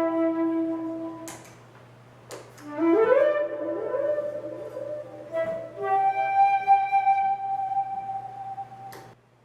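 Flute-like wind instrument playing long held notes in a looped soundscape. A note fades out about a second in, then after a short gap overlapping notes slide upward and swell into layered sustained tones that stop near the end.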